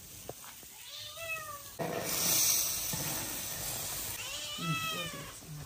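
A cat meows twice, a short falling call about a second in and another near the end. About two seconds in, a large wok starts hissing and sizzling loudly as milky liquid boils in it under clouds of steam, and the hiss slowly dies down.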